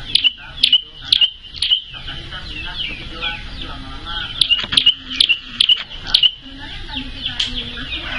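Prinia (prenjak) songbird singing: two bursts of rapid, sharp, high-pitched notes, the first right at the start and the second about halfway through, with faint speech behind.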